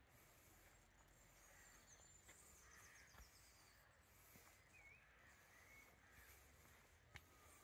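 Faint birdsong: several birds calling at a distance, including a high rapid trill and short warbling calls. A single soft tap comes near the end.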